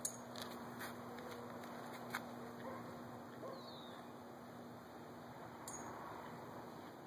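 Faint outdoor ambience: a steady low hum with a few scattered short chirps and sharp clicks.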